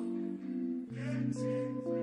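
Soft background music of sustained, held notes, changing chord about a second in.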